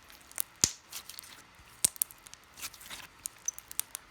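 Homemade slime with crunchy add-ins, small cubes and fimo watermelon slices, being squeezed by hand, giving off irregular sharp clicks and crunches.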